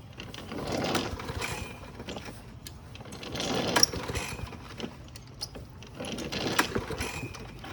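Lawn mower engine pulled over three times on its recoil starter cord, about every two and a half seconds, each pull a brief rattling whir; the engine does not catch.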